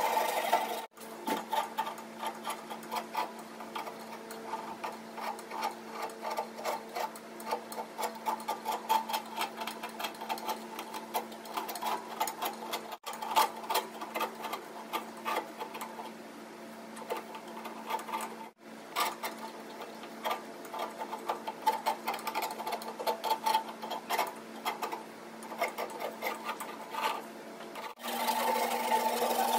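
Hand tools cutting into the spiral grooves of a mahogany barley-twist blank. A handsaw rasps back and forth in the kerf for about the first second and again near the end. In between comes a fast, uneven run of small scraping strokes and clicks from a small blade working the grooves, over a faint steady hum.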